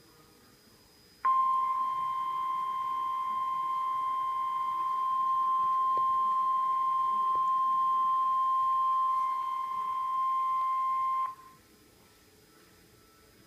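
NOAA Weather Radio warning alarm tone: a single steady high beep of about 1050 Hz, held for about ten seconds. It starts about a second in and cuts off abruptly. It is the signal that a warning broadcast, here a severe thunderstorm warning, is about to be read.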